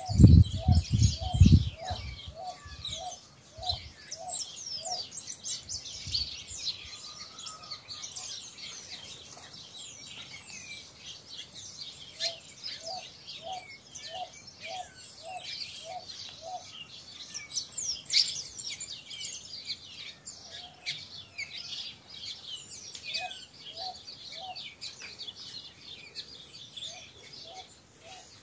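Many small birds chirping and twittering over one another in high, quick calls, with a lower short call repeated about twice a second in runs of several seconds. A few low thumps in the first two seconds.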